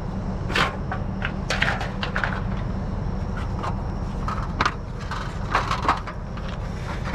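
Scattered clanks and rattles of scrap metal being pulled loose and handled by hand, over a steady low rumble.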